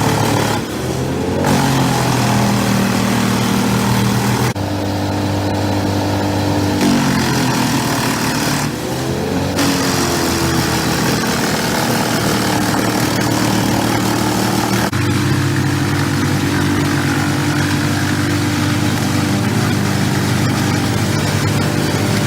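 A heavy machine's engine running steadily under load, its pitch dipping and climbing again twice in the middle, with abrupt changes in its tone where the footage is cut.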